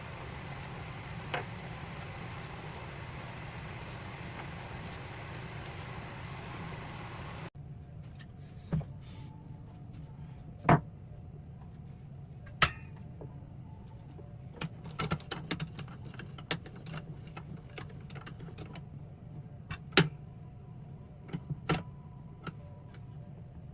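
A steady hiss, which breaks off suddenly, then scattered sharp metallic clinks and knocks, as of metal tools being set down and handled, over a low hum.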